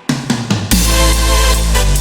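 Electronic dance music with heavy bass and drums: it drops out briefly at the start, a few drum hits sound, and the full beat comes back in under a second in.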